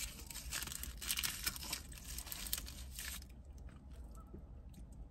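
Crisp crinkling and crunching close to the microphone: deli paper being handled while a toasted grilled cheese sandwich is chewed. It stops about three seconds in, leaving only faint soft clicks of chewing.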